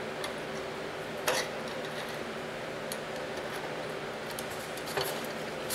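A few light metal clicks and taps as a steel hinge pin is worked into a chainsaw sharpener's pivot bracket, the sharpest click about a second in, over a steady low hum.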